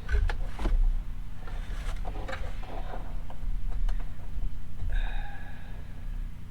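Faint metal clicks and scrapes of a socket and extension being worked onto a hood-latch nut, over a steady low rumble, with a brief high tone about five seconds in.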